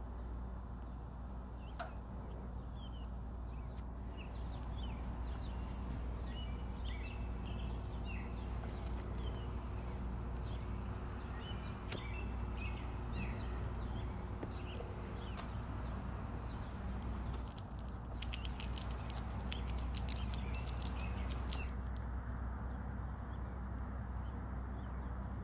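Outdoor ambience with a steady low hum and scattered short bird chirps. About eighteen seconds in comes a quick flurry of sharp crunching clicks, from the black squirrel gnawing roasted peanuts in the shell.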